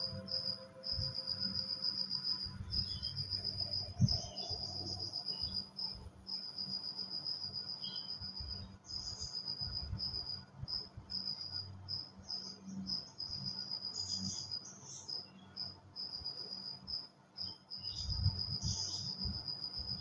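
A cricket chirping in long, steady trills broken by short gaps, with soft, irregular low knocks and scuffs underneath. A fading musical tone dies away in the first two seconds.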